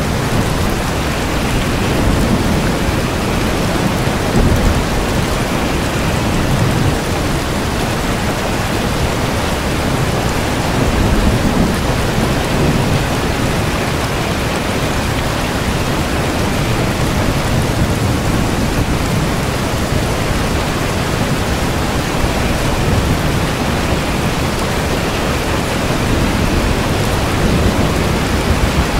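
Steady heavy rain, with low rumbles of thunder swelling now and then.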